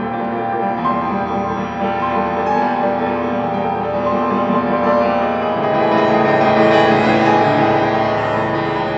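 Yamaha grand piano played with dense, sustained ringing chords that blur together. The texture thickens and grows louder a little past halfway.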